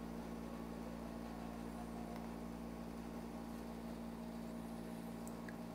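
Steady low electrical hum with faint hiss: background noise of the recording setup, with no other distinct sound.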